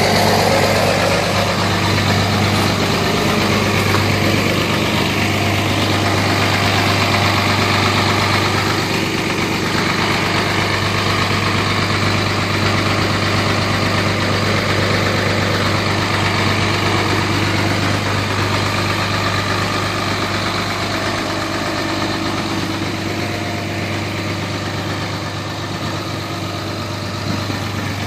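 Dodge Ram 3500's 5.9-litre Cummins inline-six turbo diesel idling steadily through a 5-inch straight-pipe exhaust with no muffler.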